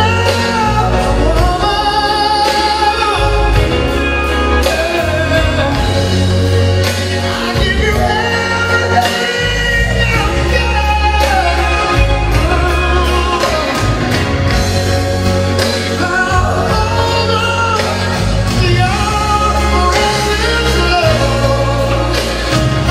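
Music: a song with a sung melody over a strong, steady bass, playing without a break.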